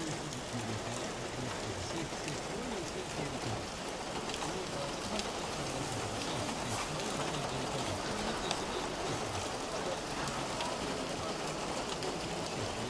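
Steady hiss of rain falling, with a faint murmur of voices underneath.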